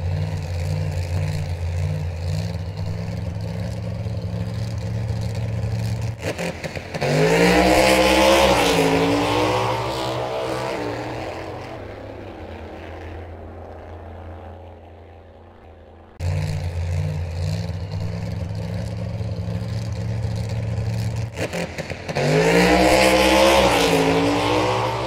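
A dubbed racing-engine sound: a steady engine drone, then a loud surge of revs that rises and falls and slowly fades away. About sixteen seconds in the drone cuts back in abruptly and the same surge repeats near the end, a looped clip.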